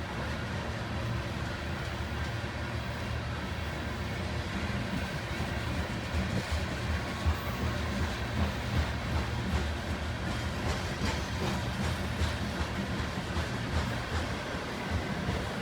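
Freight cars of a long mixed manifest train rolling past on the main line: a steady rumble of wheels on rail, with irregular clacks and bumps that grow louder from about six seconds in.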